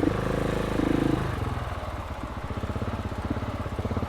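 KTM 690 SMC's single-cylinder engine through an Akrapovic exhaust, ridden at low revs: a little louder in the first second, then easing off to a slow, steady pulse.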